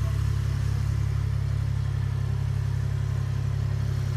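An engine idling with a steady low rumble, even throughout.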